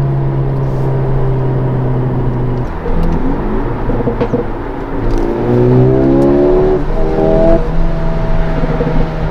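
Mercedes-AMG CLA 35's 2.0-litre turbocharged four-cylinder engine and exhaust heard from inside the cabin. It holds steady revs, eases off for a couple of seconds, then accelerates with rising revs and a gear change about three-quarters of the way through.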